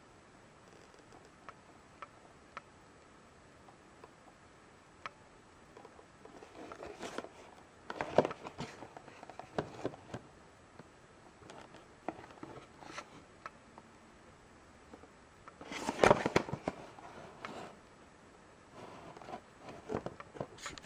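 Cardboard action-figure boxes handled and shifted by hand: a few light ticks, then irregular rustling and scraping, loudest about eight and sixteen seconds in.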